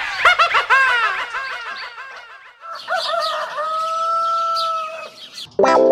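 Birds chirping in quick, overlapping little calls, then about three seconds in a rooster crows once, ending in one long held note.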